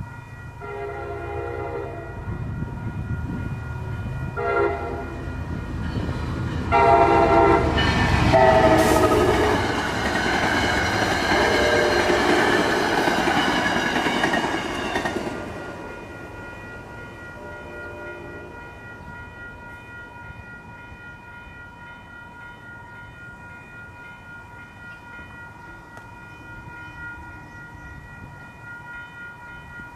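MBTA Commuter Rail diesel train sounding its horn as it goes through a grade crossing: several blasts, the last held for about seven seconds, over the rumble and rail noise of the passing train. A grade-crossing warning bell rings steadily throughout and keeps ringing after the train has gone, about halfway through.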